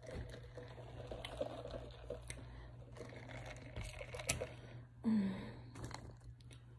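Drinking from a paper cup, with small mouth clicks and rustles, then a short louder low sound about five seconds in as the cup is set down, and paper crinkling as fries are picked from the paper bag.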